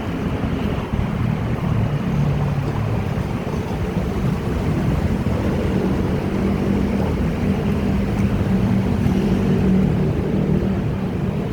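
Electric commuter train running: a steady rumble with a low hum that wavers in pitch.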